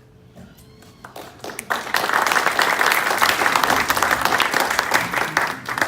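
Audience of meeting members applauding, beginning about a second and a half in, quickly filling out, and ending sharply just at the end.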